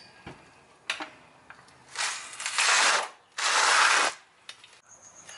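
Floor jack and ratcheting jack stand being worked under the car: a few metal clicks, then two long, loud rasping bursts, about two and three and a half seconds in.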